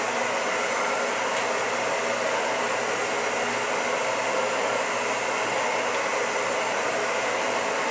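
Taiff Fox Ion hair dryer running steadily on hot air, a constant rush of air with a faint motor hum, under test with its newly replaced motor and heating element working.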